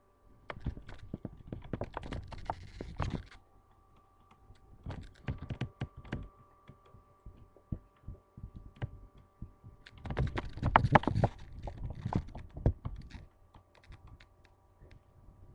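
Handling noise from a webcam held out of a window: irregular bursts of clicks, knocks and rustles in three clusters, loudest about two-thirds of the way through, over a faint steady hum.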